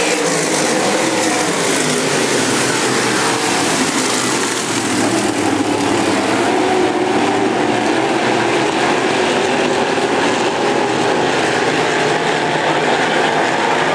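A pack of dirt-track semi late model race cars running around the oval, several engines overlapping in a loud, steady drone, their pitches sliding as the cars pass.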